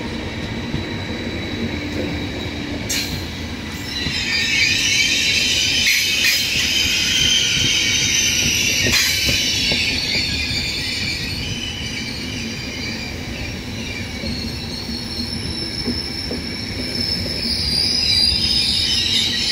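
Intercity passenger coaches rolling slowly past with a low rumble of wheels on rail. From about four seconds in, the wheels squeal high-pitched, several tones at once, and the squeal swells again near the end. A couple of sharp clicks come from the wheels.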